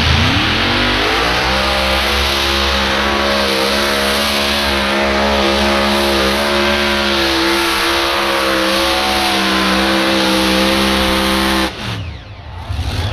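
Tractor-pulling engine revving up, then held at high, steady revs for about ten seconds. Near the end it is cut off suddenly and the revs fall away.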